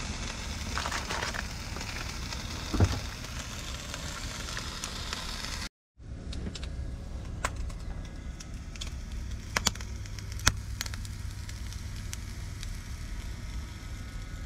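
Bacon sizzling in a frying pan on a gas stove, with a few sharp pops. The sizzle breaks off suddenly about six seconds in, then goes on more quietly.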